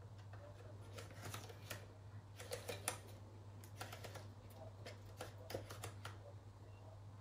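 Quiet clicking and scraping of hard plastic being handled as red gaskets are peeled off a Dyson cyclone section, in several short clusters, over a steady low hum.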